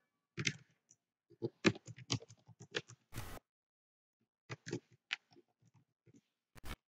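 Computer keyboard keys clicking in irregular runs as text is typed, with short pauses between runs. There is a louder, longer clack about three seconds in and another near the end.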